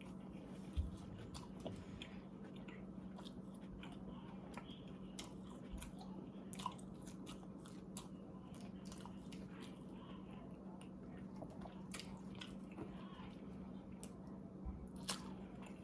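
A person chewing a mouthful of a stacked McDonald's sandwich with a fish fillet, with soft irregular crunches and wet mouth clicks. A steady low hum runs underneath.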